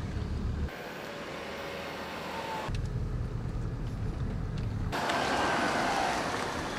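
Car driving slowly, its engine and tyre noise heard partly from inside the cabin as a low rumble and partly from outside as it rolls past, with abrupt changes in sound at the edits.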